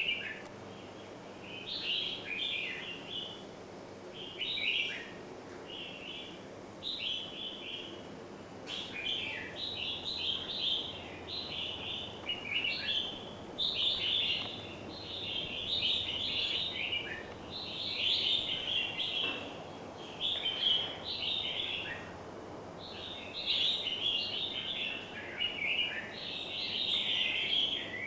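Small birds singing, with rapid twittering phrases that follow one another almost without a break.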